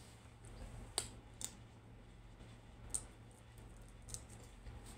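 Four or five sharp, separate clicks, the loudest about a second in, over a low steady hum.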